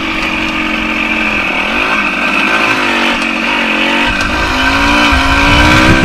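Yamaha DT100's two-stroke single-cylinder engine running while riding, its pitch falling and rising a couple of times with the throttle, with wind rumble on the microphone.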